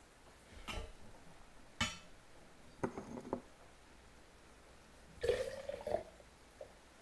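Porcelain and glassware being handled on a table: a few light clinks and knocks, a small cluster of them around three seconds in, and a brief scrape near the end.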